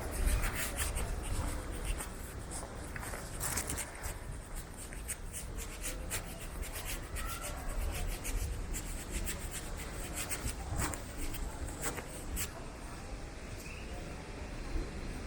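Busy airport terminal ambience: a steady low rumble with rubbing noise and many irregular sharp clicks.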